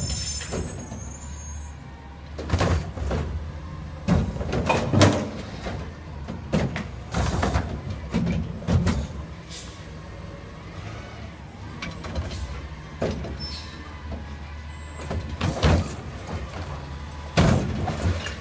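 Front-loading recycling truck with a Curotto-Can arm: its diesel engine runs with a steady low rumble, broken by repeated clanks and clatters of the arm and carry-can about every one to two seconds as it works the curbside carts.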